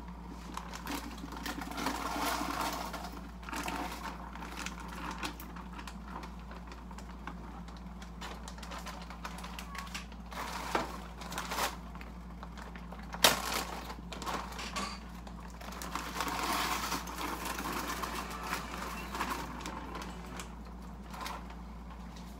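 Plastic freezer bag crinkling as frozen blackberries are shaken out of it and drop into a pot, with scattered clicks and knocks and one sharp knock about 13 seconds in.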